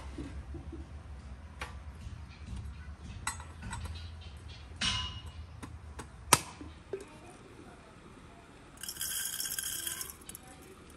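Metal clinks and taps of samovar parts being handled and set in place, the sharpest a single click about six seconds in. Near the end, dry loose tea leaves rattle into a glass teapot for about a second.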